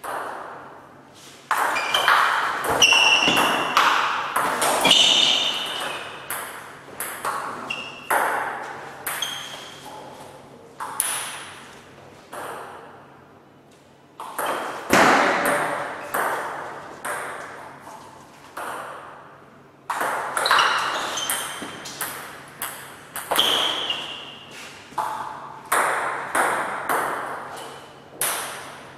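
Table tennis rallies: the ball clicking off the paddles and bouncing on the table in quick back-and-forth exchanges, each hit echoing in the room. The rallies break off briefly twice between points.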